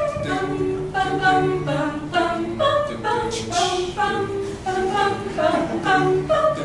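A six-voice mixed a cappella group, women and men, singing in harmony without instruments, the chords moving in short steps about twice a second.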